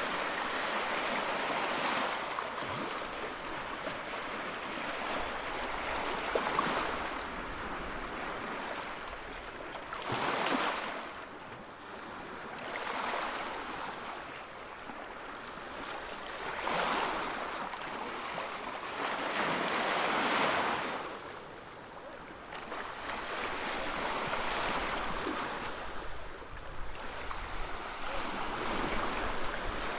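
Ocean surf on a beach: waves breaking and washing up the shore, swelling and fading every few seconds.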